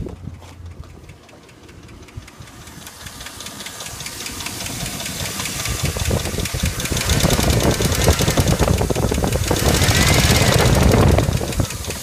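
A 1999 GMC Sierra's 5.3-litre V8 idling with a rapid, even ticking from the valvetrain, getting much louder over the first several seconds as the engine bay is neared. The owner takes the tick for a dead hydraulic lifter, one that has not quieted after start-up, with poor oil pressure showing.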